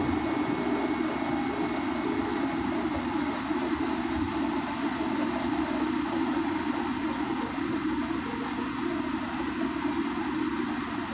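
Steady cabin noise of an airliner on approach: jet engines and rushing air heard from inside the passenger cabin, with a faint steady high whine on top.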